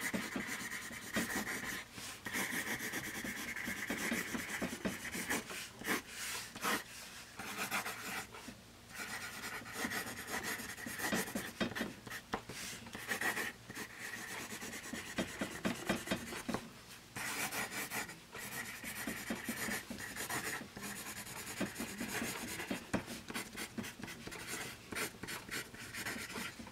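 Graphite of a Bostitch Premium #2/HB wood pencil scratching across paper in cursive handwriting: many short, quick strokes with a few brief breaks between words.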